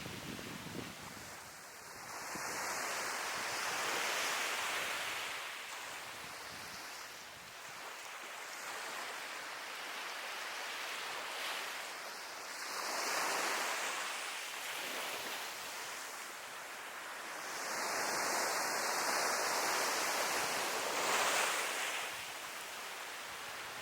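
Sea waves breaking and washing on the shore, the surf swelling and ebbing in three louder surges a few seconds apart.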